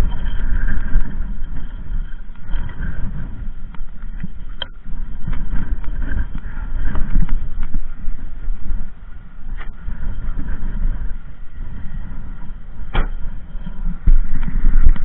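Wind buffeting the camera's microphone in uneven gusts, a low rumble that swells and fades, with three sharp clicks spread through it.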